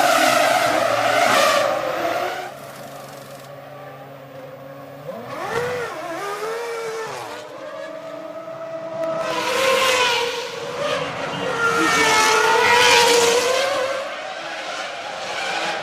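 2001 Formula One cars' V10 engines at speed, passing one after another: a loud pass at the start, engine pitch dropping and climbing quickly as gears change about halfway, then another loud pass a few seconds later.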